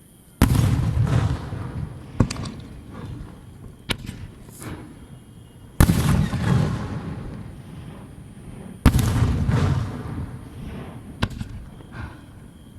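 Aerial firework shells bursting: three loud booms, about half a second, six seconds and nine seconds in, each followed by a long rumbling tail. Sharper single cracks fall in between.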